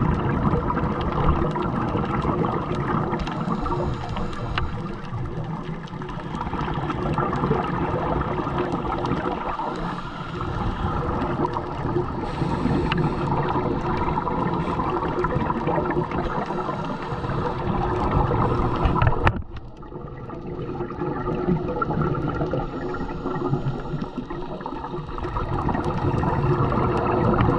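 Underwater sound of scuba diving: a muffled, gurgling rumble of regulator bubbles and water noise against the camera housing, swelling and fading with the divers' breaths, with a sudden brief lull about two-thirds of the way through.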